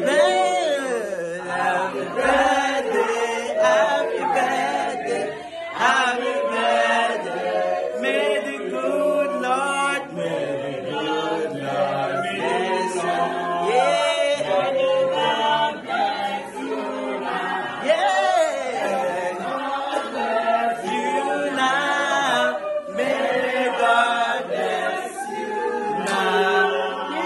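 A group of people singing together without instruments, many voices at once, going on without a break.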